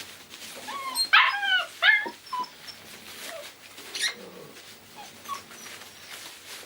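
A young puppy whimpering and yipping: a quick run of short, high whines about a second in, then a few fainter squeaks.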